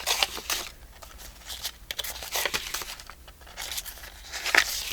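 Paper rustling and crinkling as pages of a handmade paper journal are handled and turned: a series of irregular short rustles.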